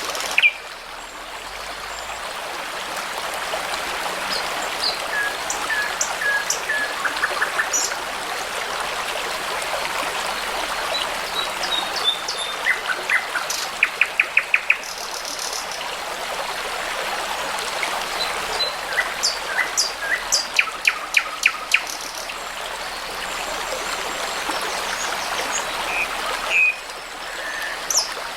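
Songbirds singing, with scattered short chirps and several bursts of quick repeated notes, over the steady rushing of a babbling brook.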